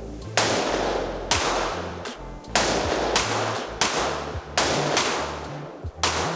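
Handgun fired on an indoor range: seven shots at an uneven pace, about half a second to a second and a quarter apart, each with a long echoing tail off the range walls.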